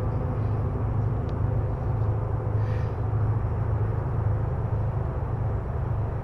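Steady low rumble of wind buffeting the camera's microphone.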